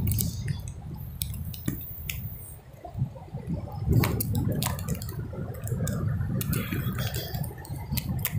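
Footsteps squelching on wet, muddy beach sand, with scattered sharp clicks over a steady low rumble of wind and surf.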